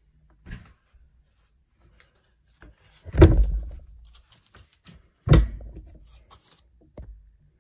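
Two heavy thumps about two seconds apart, each dying away over about half a second, with a lighter knock before and after them.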